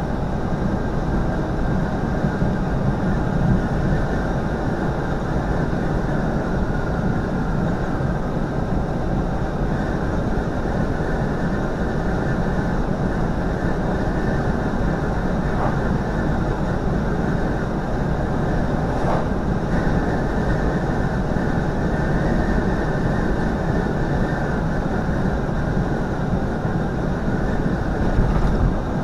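Steady drone of a semi truck cruising at highway speed, heard inside the cab: engine and tyre noise, strongest in the low end and unchanging throughout.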